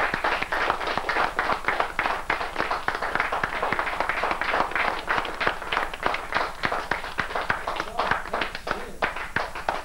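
Small audience applauding, many separate hand claps overlapping.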